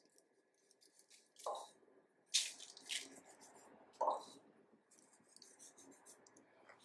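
Fingers pinching dry desiccated coconut from a bowl and sprinkling it over a tray, with faint rustling and a few short scrapes.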